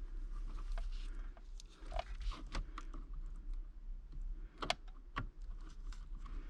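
Small irregular clicks and rustles of hands handling wires and plastic solder-seal connectors, with two sharper clicks near the end.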